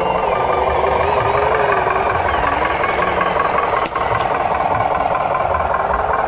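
A radio-controlled model dump truck running, with a steady engine-like drone whose pitch wavers up and down as the throttle changes. There is a brief click and a momentary drop in level about four seconds in.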